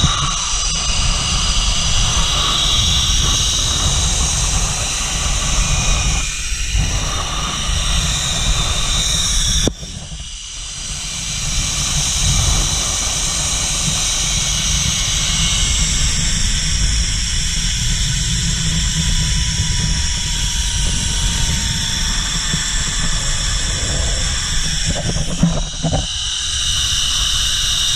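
Wind rushing over the microphone during a fast zipline ride, with the trolley's pulleys running along the steel cable as a steady high whir. The sound dips briefly about ten seconds in.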